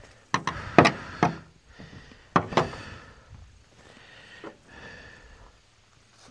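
A knife and mushroom pieces knocking on a pickup truck's tailgate while a chicken-of-the-woods mushroom is trimmed: about five sharp knocks in the first three seconds, then softer cutting and scraping.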